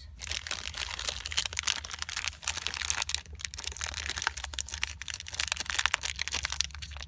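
Clear plastic wrapper crinkling and crackling as fingers pick and pull at it to open it, a dense run of fine crackles.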